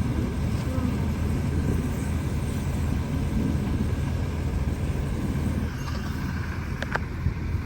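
Engine running steadily with a low hum. A couple of sharp light clicks come near the end.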